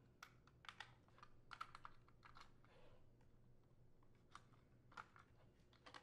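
Faint, irregular clicks and rustles of plastic wire-harness connectors being worked loose and unplugged from a Whirlpool dishwasher's main control board.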